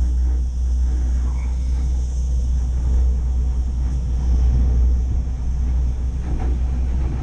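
Steady low rumble inside a moving cable-car gondola as it rides the cable uphill.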